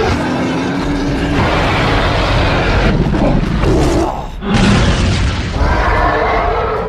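Cartoon action soundtrack: heavy boom and impact sound effects layered over music, with a brief drop about four seconds in.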